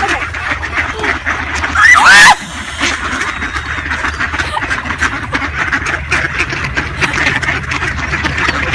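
A flock of ducks quacking in a busy, continuous chatter, with one loud, short cry about two seconds in.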